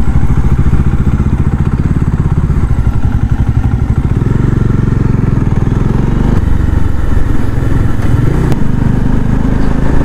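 Bajaj Dominar 400 motorcycle's single-cylinder engine running steadily under way, heard on board as the bike is ridden, with a low, even pulsing exhaust note.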